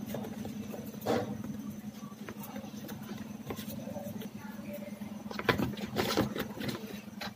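Plastic wiring-harness connectors and wires being handled, with a click about a second in and a cluster of clicks and rattles near the end, over a steady low hum.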